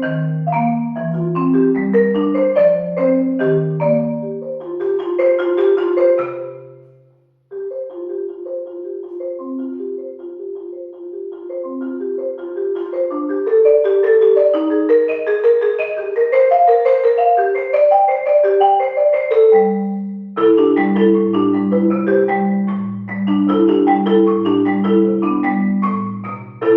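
Marimba music: quick runs of struck notes in a lively melody. It breaks off for a moment about seven seconds in, then resumes, and low bass notes join in a repeating pattern about twenty seconds in.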